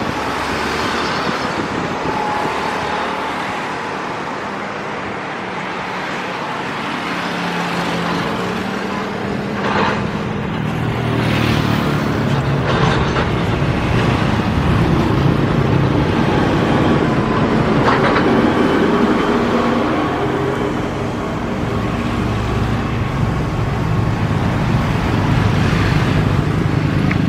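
Boeing 777-300ER's GE90 turbofan engines running as the airliner taxis: a steady jet rumble with a faint whine, growing louder about eleven seconds in.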